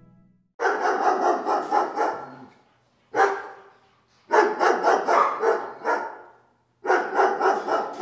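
A dog barking in quick volleys of several barks each, with a single bark between the first two volleys.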